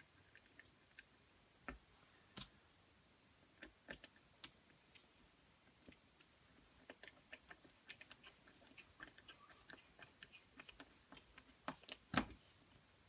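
Faint, scattered clicks and ticks of a screwdriver and small drill parts being handled as a small screw is driven back into the drill's cord clamp, coming thicker between about seven and eleven seconds in, with one louder knock near the end.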